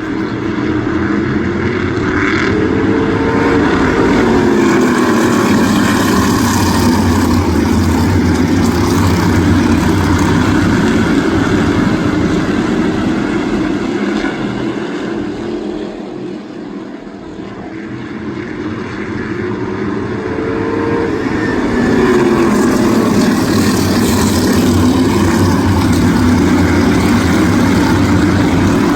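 A field of crate-engine V8 modified race cars at racing speed, their engines swelling as the pack passes, fading about halfway through, then swelling again as it comes around once more.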